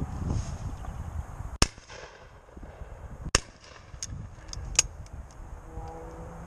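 Two shotgun shots about a second and a half apart, the first the louder, followed by a few sharper, quieter clicks.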